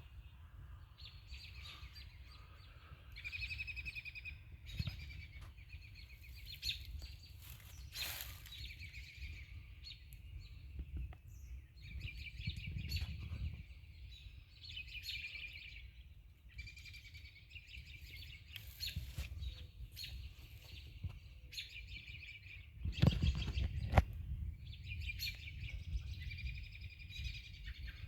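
Birds singing: repeated bouts of rapid, high trilled chirping with short gaps between, over a steady low rumble. A loud thump comes about 23 seconds in.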